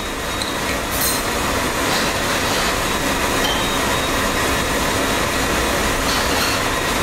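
A steady, loud rushing noise of running kitchen machinery, with a few light clinks of a metal spoon against glass about one and two seconds in.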